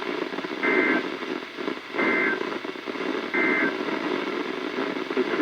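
NOAA Weather Radio SAME data tones heard through a weather radio: three short, identical two-tone warbling bursts, each about a third of a second long and roughly 1.3 seconds apart, over steady radio hiss. Bursts this short are the end-of-message code that closes an alert.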